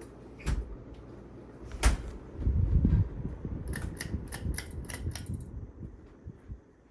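SMC A52 ceiling fan running on high, with a quick run of sharp light clicks and rattles. A brief low rumble of moving air buffets the microphone just before the clicks.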